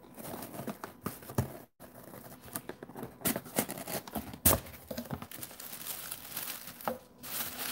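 Corrugated cardboard mailer box being opened by hand: the tucked lid flap scrapes and clicks free, with paper rustling and crinkling as the lid comes up. A sharp snap about halfway through is the loudest sound, and the audio cuts out for a moment just under two seconds in.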